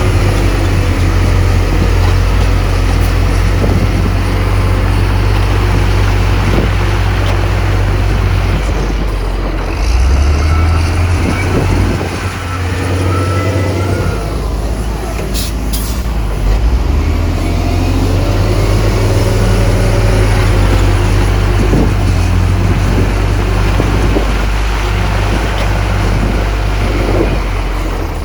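Heavy diesel engines of a dump truck and bulldozer running under load, with a steady deep drone that drops away briefly a little before halfway and then comes back. A brief sharp high sound comes about halfway through.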